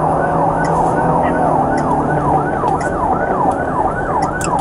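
Police siren in yelp mode, rising and falling about three times a second, heard from inside a moving patrol car over engine and road noise.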